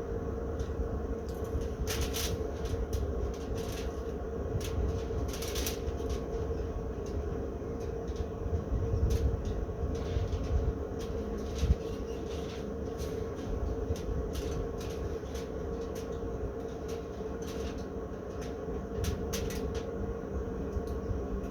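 A steady low rumble with a constant hum, and scattered short crackles, the clearest about two seconds in, about five and a half seconds in, and near the end.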